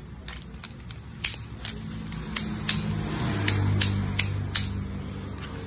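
Baitcasting reel spinning with a low whir that builds from about two seconds in, is strongest near the middle and then dies away slowly. Sharp clicks run through it, coming about three times a second while it spins: a free-running spool that turns smoothly.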